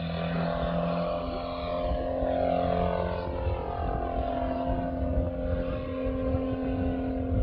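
Radio-controlled Pitts biplane model's engine and propeller running hard as it climbs away, a steady buzzing note whose pitch falls over the first few seconds as it flies off.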